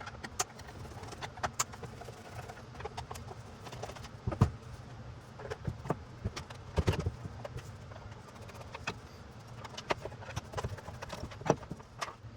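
Irregular light clicks and knocks from things being handled, over a low steady hum, with a couple of louder knocks about four and a half and seven seconds in.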